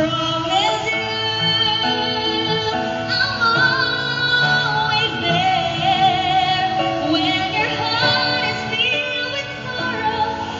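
Woman singing a slow ballad into a microphone through a PA, with grand piano accompaniment; she holds long notes with a wavering vibrato.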